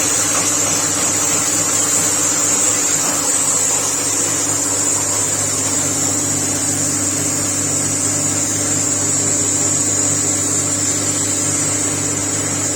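Industrial machinery running steadily: a constant low hum with a steady high-pitched hiss over it.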